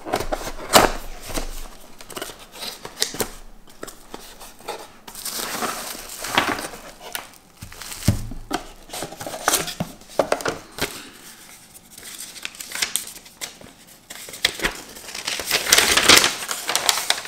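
Unboxing handling noise: a cardboard box being opened, bubble wrap crinkling and paper sheets rustling, with scattered clicks and taps. The rustling is loudest near the end, as a sheet of paper is unfolded.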